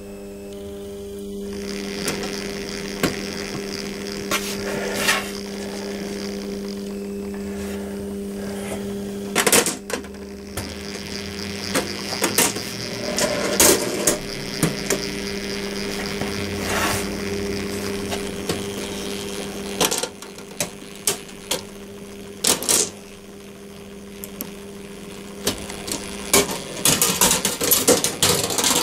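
Electric motor of a Meccano model running with a steady hum, with sharp clicks and knocks from the Meccano gearing and linkage scattered through. The clicking comes thick and fast near the end, as the chain and sprockets turn.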